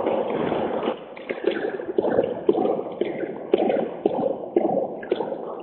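Audience applauding, a dense patter at first that thins out into scattered separate claps and fades toward the end.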